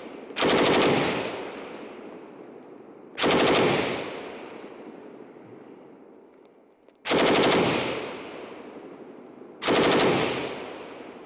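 IWI Negev NG-7 7.62×51mm belt-fed machine gun firing four short full-auto bursts of about half a second each, at a slow cyclic rate of about 600 rounds per minute. Each burst trails off in a long echo.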